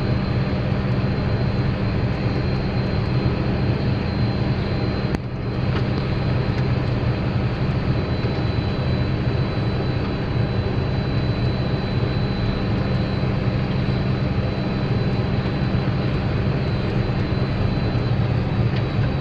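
Potato digger and its tractor running steadily under harvest load, a loud low engine-and-machinery drone with a thin steady high whine over it. There is a brief dip about five seconds in.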